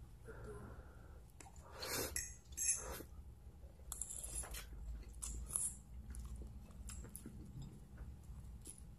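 Noodles being slurped and chewed, with two loud slurps about two and three seconds in, then quieter chewing and small clicks.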